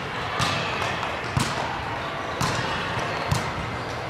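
Volleyballs being struck in a passing drill: four sharp smacks, about one a second, echoing in a large gym.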